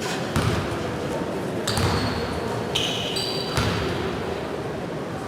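Basketballs bouncing on a sports-hall floor, a few dull thumps spaced a second or more apart, with short high squeaks in the middle.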